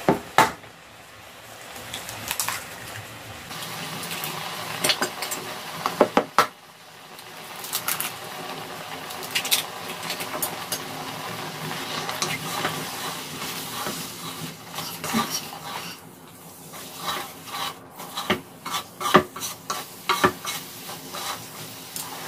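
Eggs and cherry tomatoes sizzling in a frying pan while wooden chopsticks stir and scramble them, with repeated sharp taps and clicks of the chopsticks against the pan.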